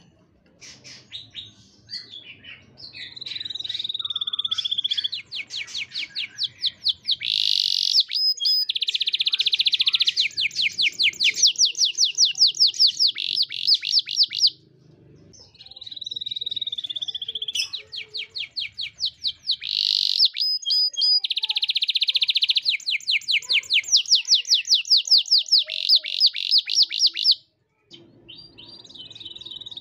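Domestic canary in full song: two long phrases, each opening with a drawn-out whistled note and running into fast repeated trills and buzzy rolls, with a short pause between them and a new phrase starting near the end.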